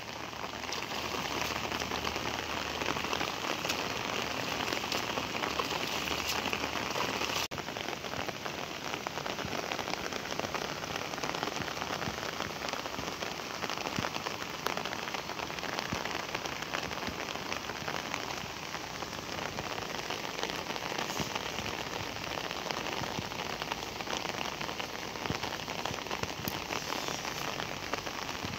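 Heavy rain falling steadily on flooded paddy fields: a dense, even hiss of drops hitting standing water. The hiss changes in tone abruptly about seven seconds in.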